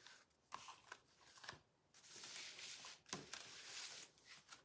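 Faint rustling and light taps of paper greeting cards being slid across and set down on a tabletop.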